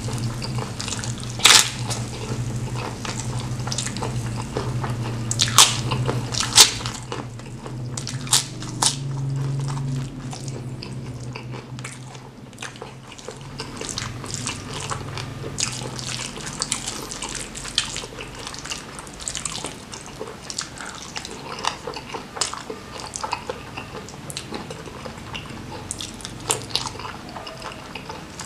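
Close-miked wet chewing and lip smacking of someone eating spicy squid, petai beans and rice with his hands, made up of many sharp wet clicks. The loudest clicks come about a second and a half in and again around six seconds in. A low steady hum sits under the first half and fades about sixteen seconds in.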